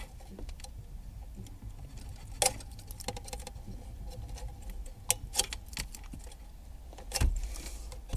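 Scattered clicks and rattles of a car's factory stereo being worked out of the dashboard and its antenna and wiring plugs unplugged. A sharper knock comes about two and a half seconds in, a few clicks in quick succession around five seconds, and another knock near the end.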